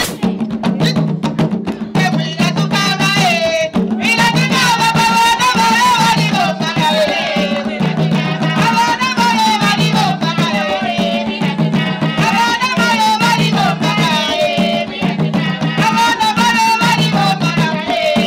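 Traditional Zambian drumming on tall wooden hand drums, a steady repeating beat, with a women's song that comes in strongly about four seconds in.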